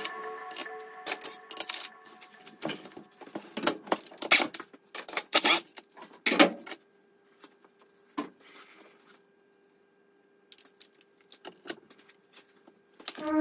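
Ratchet wrench clicking and hand tools clinking on steel as the screws of a homemade puller are tightened to press apart a DSG gearbox. The clicks come in an irregular run for the first several seconds, then thin out to a few scattered clinks. Background music fades out in the first two seconds.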